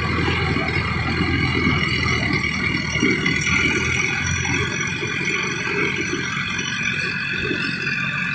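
Mahindra Arjun Novo 755 DI 4WD tractor's diesel engine running steadily under load as it pulls a rotary tiller through a flooded paddy field to puddle the soil, with a rattle from the tiller behind.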